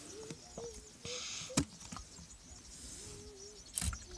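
Mostly quiet, with faint short wavering tones in the background; a brief rustle about a second in is followed by a sharp knock, and another knock comes near the end.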